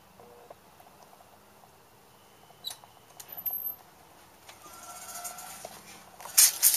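A wooden front door being pushed open and handled: a few faint clicks and rustles, then a quick cluster of sharp knocks on the door near the end.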